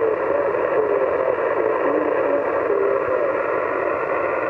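Yaesu FT-991A transceiver's speaker playing 20-metre upper-sideband receive audio: steady band hiss with a weak station's voice faintly wavering, barely readable in the noise.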